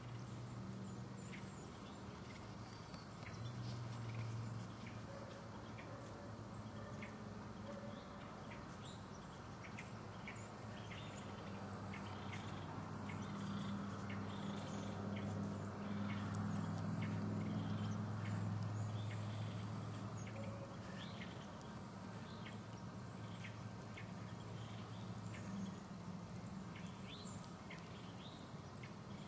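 Faint outdoor ambience: a low, steady hum that swells in the middle, with scattered short, high ticks or chirps.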